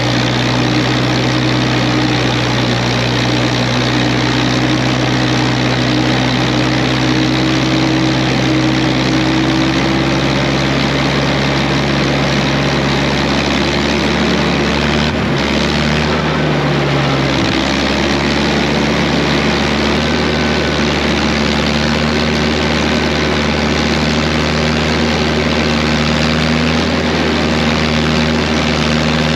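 Air-cooled Wisconsin V4 engine of a Ditch Witch R40 trencher running steadily as the machine drives, now firing on a Hot Spark electronic ignition in place of points. Its note dips briefly and settles at a slightly different pitch about halfway through.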